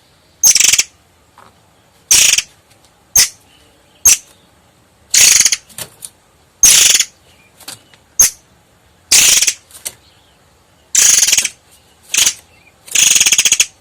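Long-tailed sibia (murai air) singing: a series of high, dry rattling trills about once a second, short sharp notes alternating with longer rapid rolls.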